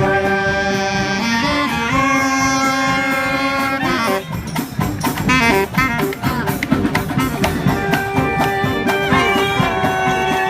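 Marching brass band playing: horns hold chords over drums, break into a busier, drum-driven passage of quick notes in the middle, then return to held chords near the end.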